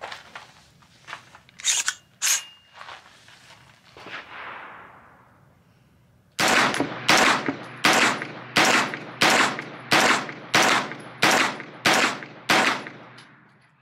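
A few metallic clicks as a fresh magazine goes into a blowback 9mm AR carbine fitted with a Mercury Precision bolt and a mil-spec extractor. Then about ten shots fired in steady semi-automatic succession, roughly one every two-thirds of a second, each sharp report followed by a short ring.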